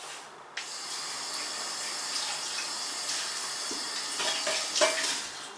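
Kitchen tap turned on about half a second in, water running steadily into the sink as knives are rinsed under it. A few clinks come near the end, and the water shuts off just before the end.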